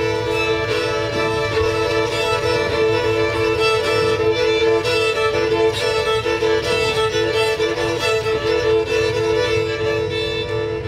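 Violins playing slow sustained music: two lower notes held steadily like a drone while higher notes change above them.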